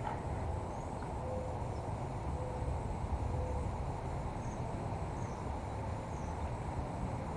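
Outdoor waterside ambience: a steady low rumble, with a few faint high chirps scattered through it and three short low hoots about a second apart in the first half.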